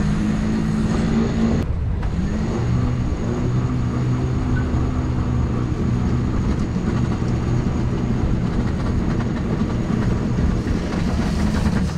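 Sailboat's electric winch hoisting the mainsail: a motor hum that shifts up and down in pitch over the boat's running engine, with a brief break about two seconds in.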